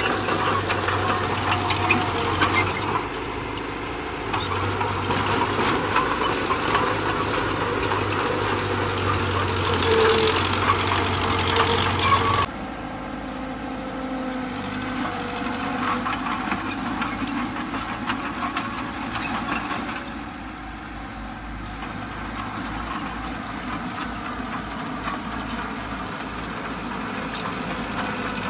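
Small crawler bulldozer running and working, a steady engine drone with fine clatter over it. The sound drops abruptly to a quieter run about twelve seconds in.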